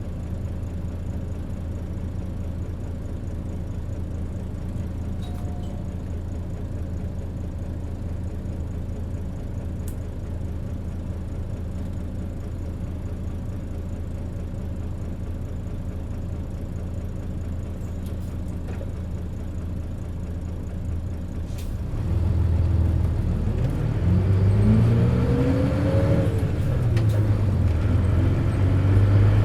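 Mitsubishi Fuso Aerostar P-MP218K bus engine idling steadily, then pulling away about two-thirds of the way in, louder, with a whine that climbs, drops back at a gear change and climbs again. The whine is typical of the harsh unusual running noise this bus is known for.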